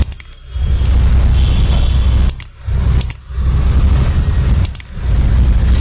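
Loud, steady low rumble of background noise on the recording microphone. It cuts out briefly four times, with a click at the edge of each break.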